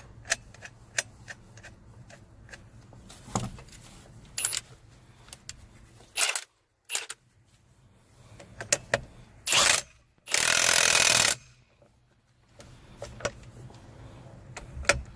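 Hand tools clicking and clinking on metal driveshaft parts while a bolt and washer are fitted at the center bearing, with a few short power-tool bursts; the longest lasts about a second, about ten seconds in.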